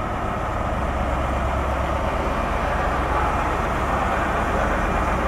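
Grand Central HST diesel power car running steadily at idle while standing at the platform: an even engine hum with a constant low rumble underneath.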